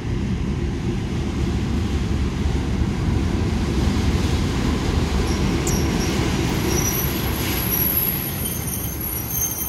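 KiwiRail DXR-class diesel-electric locomotive running as it draws its passenger train into the platform and passes close by. Its engine and the rolling train make a steady low noise throughout. From about halfway, thin high-pitched squeals rise from the wheels as it slows to arrive.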